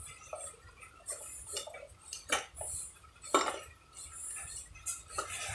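Light metallic clinks and scrapes of a bearing puller and tools being worked against a truck's front hub, with two sharper metal knocks a little after two seconds and about three and a half seconds in.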